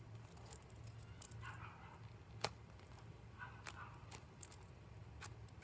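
Faint handling of a foam squishy toy: soft rustles and a few light clicks over a low steady hum.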